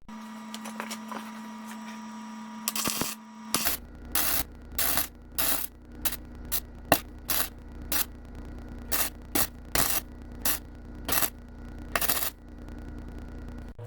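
Welding on a cracked steel car subframe, done in about fifteen short bursts of arc crackle, each under half a second, starting about three seconds in. The short bursts are typical of stitch or tack welding along a crack.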